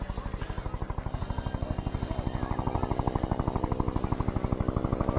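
Helicopter rotor chopping rapidly and evenly over a steady engine drone, growing louder over the last couple of seconds.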